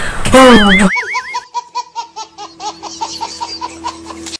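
A baby laughing hard, starting about a second in: a fast run of ha-ha laughs, about five a second, that cuts off suddenly at the end.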